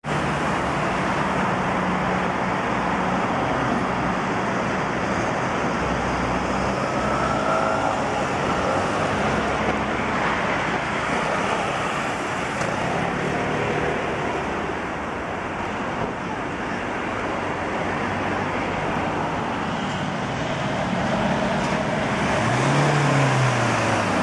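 City street traffic: a steady hum of cars driving past on a busy boulevard, with a brief rising and falling engine note near the end.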